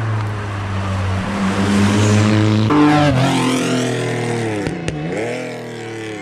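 Rally car engine at high revs passing close by, growing louder and peaking about three seconds in as it goes past. About five seconds in the revs drop sharply and climb again.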